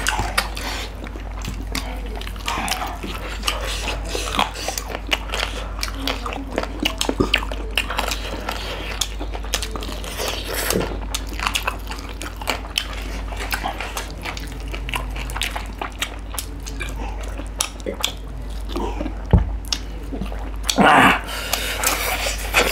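Close-miked eating: chewing, biting and wet mouth smacks as chicken curry and rice are eaten by hand, a dense run of short clicks over a steady low hum.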